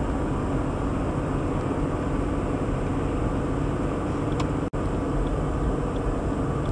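Steady engine and tyre noise inside a car cruising at about 50 km/h, heard through a dashcam's microphone. The sound cuts out for an instant about four and a half seconds in.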